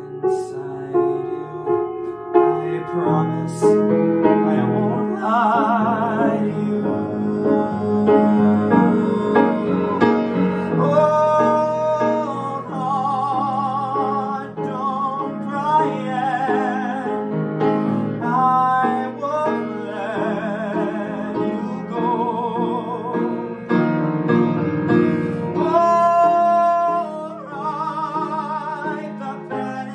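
A young male voice sings a Broadway show tune, holding long notes with vibrato, while he accompanies himself on a grand piano.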